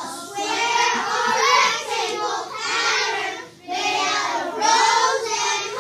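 A class of young children's voices speaking together in loud, chant-like phrases, with short breaks between them.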